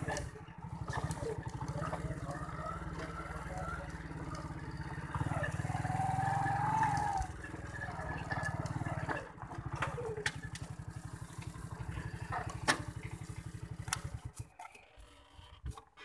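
Small motorcycle engine running steadily under way, then cutting out near the end as the bike stops.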